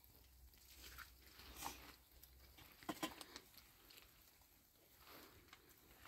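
Faint, sparse pattering and rustling on tent fabric and plastic sheeting, with a couple of sharper clicks about three seconds in.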